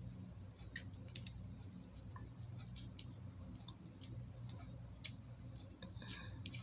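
Faint, scattered clicks and taps as a paint marker tip dabs on a small Breyer model horse held in the hand, over a low steady hum.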